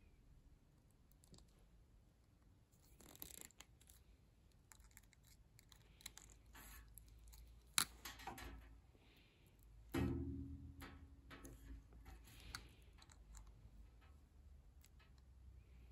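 Faint clicks and rustles of pliers crimping metal spade connectors onto copper wires, with a sharper click nearly eight seconds in and a louder knock with a short ringing tone about ten seconds in.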